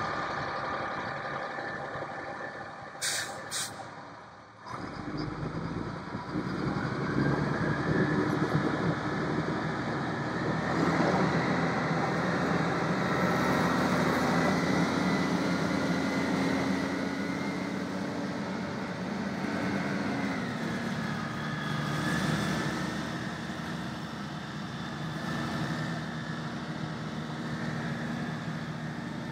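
A military 6x6 truck's Cat 3126 turbo diesel running as the truck drives, its engine note rising and falling, with the steady hiss of water spraying from its sprayers. There are two short sharp hisses about three seconds in.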